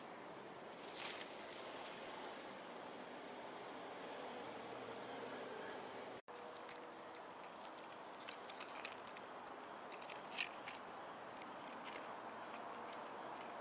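A tabby kitten eating dry cat food from a plastic tray, making small scattered crunching clicks in the second half. Before that, a faint steady background hiss with a short rustle about a second in and a row of faint, even ticks.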